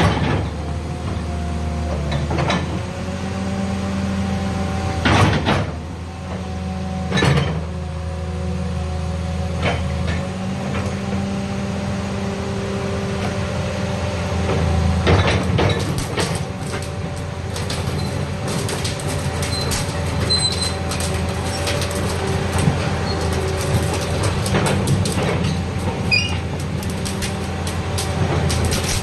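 Caterpillar 336D excavator's diesel engine running steadily, with a few sharp metallic knocks in the first half and a continuous crackling rattle from about halfway on.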